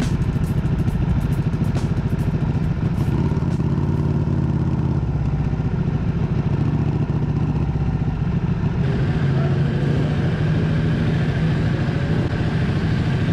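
Sportbike engine running steadily at low revs while the bike rolls slowly through the pits, heard from the bike's onboard camera.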